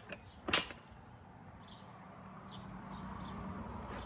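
A single sharp click about half a second in, as parts of the trimmer are handled, then a few faint bird chirps over a low hum that grows steadily louder.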